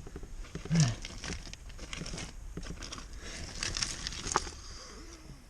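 Irregular rustling, scraping and crackling of a caver in overalls crawling into a narrow rock crevice over loose debris, with a brief vocal grunt about a second in.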